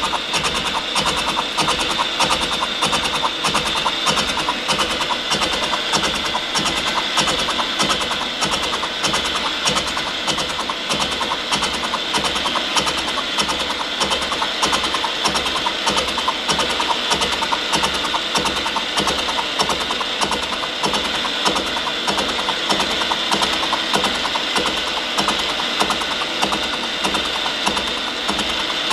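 Brown & Sharpe No. 2 light universal milling machine face-milling with a 5-inch carbide-tipped shell mill turning at about 95 rpm: a steady, evenly repeating chopping as the inserts cut into the metal workpiece, over the running machine.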